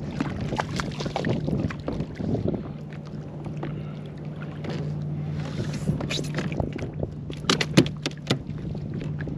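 Handling noise aboard a fishing kayak: knocks and clatter on the kayak over a steady low hum, with a cluster of sharp knocks near the end.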